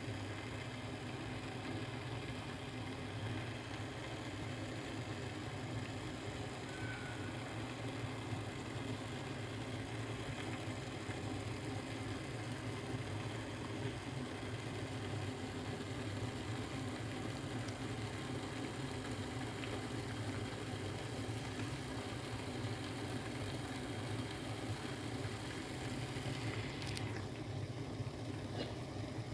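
A pot of drink boiling on the stove: a steady low rumble.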